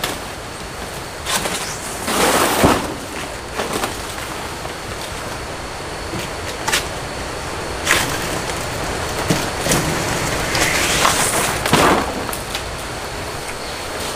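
Large banana leaves rustling and swishing in a few bursts, with a couple of sharp snaps, over a steady hiss and a thin, steady high-pitched tone.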